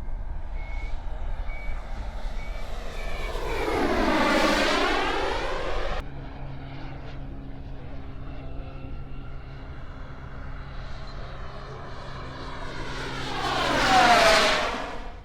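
Radio-controlled turbine jet making two fast, low passes, its turbine whine and jet hiss swelling and fading as it goes by; the second pass, near the end, is the louder.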